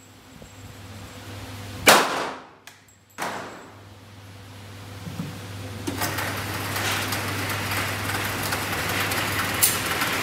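Two pistol shots from an STI Tactical 3.0, about a second and a half apart, each ringing briefly off the range. After them a steady running noise builds slowly, with one sharp click near the end.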